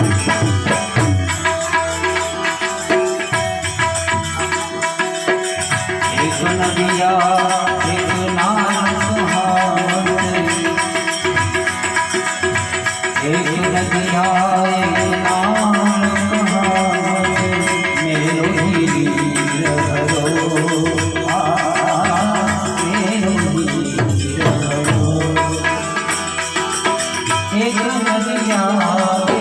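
A man singing a Gujarati devotional song to harmonium, his voice bending and wavering in pitch over steady held chords, with a rattling percussion beat throughout.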